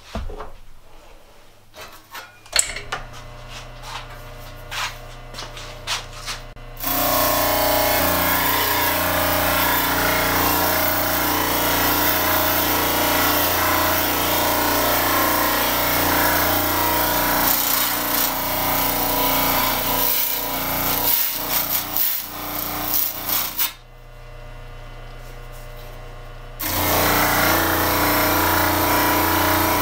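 An electric motor with an abrasive wheel on its arbor starts running about two and a half seconds in with a steady hum. From about seven seconds a steel blade is held against the spinning wheel, giving a loud, continuous grinding as rust is scoured off. The grinding stops for a couple of seconds near the end, leaving the motor's hum, then starts again.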